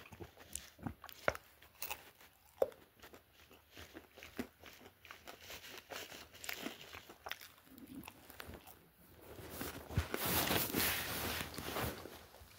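Handling noises: scattered light clicks and knocks, then about ten seconds in a louder stretch of rustling and crinkling lasting a couple of seconds.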